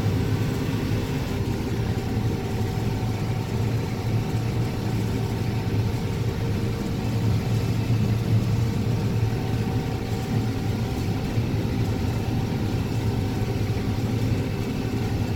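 Combine harvester running steadily under load while shelling corn: a constant engine and machinery drone with a deep hum.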